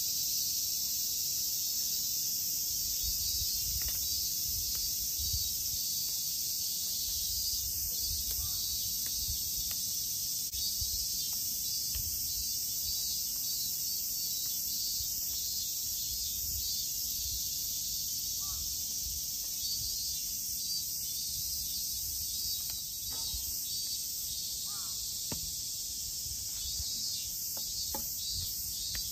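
A steady, high-pitched chorus of summer insects shrilling without pause, with soft low rumbles underneath.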